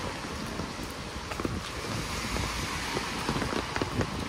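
Steady rain falling on a wet cobbled street, with wind rumbling on the microphone. Irregular sharp taps of drops land close by, more often after the first second.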